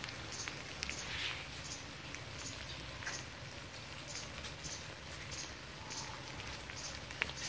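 Minced field rat, red curry paste and sliced chillies frying in a wok: a faint steady sizzle with scattered small crackles and pops.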